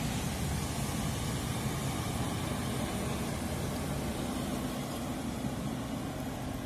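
Excavator engine running steadily.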